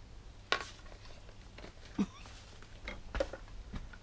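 A handful of short clicks and knocks from a scooter mirror and packaged spare parts being handled, the first about half a second in being the sharpest.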